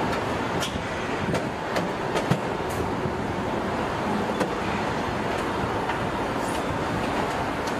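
Assembly-plant floor noise: a steady mechanical din with scattered light clicks and knocks, the loudest about two seconds in.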